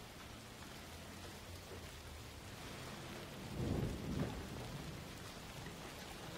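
Steady rain hiss, with a low rumble of thunder swelling up a little past halfway and fading within about a second.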